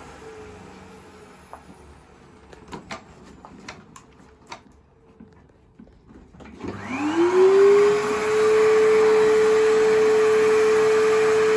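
Cylinder vacuum cleaner motors: one fades as it winds down, followed by a few clicks and knocks of handling. About two-thirds of the way in, another cylinder vacuum switches on, its whine rising quickly and then holding at a steady high pitch as it runs.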